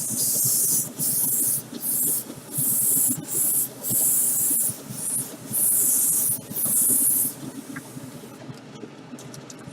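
Clear coat being sprayed onto a model car body in about nine short hissing bursts, each under a second, which stop about two seconds before the end.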